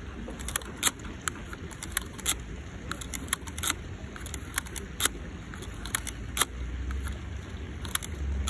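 Mamiya RB67 Pro-S 120 film back being wound by hand: a run of sharp, irregular clicks from the winding knob and advance lever, about two to three a second, over a low wind rumble on the microphone.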